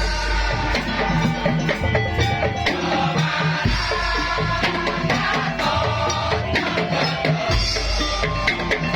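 Madurese patrol music (tongtong/daul) ensemble playing a fast, percussion-driven piece: dense rhythmic drum and wood strokes over a melody, with a deep bass that swells in long low notes every few seconds.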